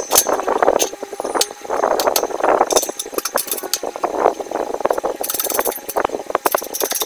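Aluminium engine crankcase and a steel bearing driver clinking and knocking against the steel bed of a hydraulic press as they are shifted into place, with a quick run of fast rattling ticks a little past five seconds in and again near the end.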